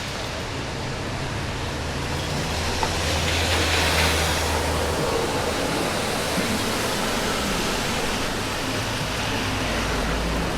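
Steady noise of riding in a vehicle: an even hiss over a low hum, the hiss swelling briefly about four seconds in and the hum fading soon after.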